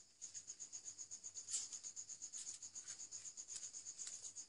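Soft rubbing and scraping as fibrous sheaths are stripped off boiled bamboo shoots by hand, the clearest rub about a second and a half in. Under it runs a steady, high insect chirping of about seven pulses a second.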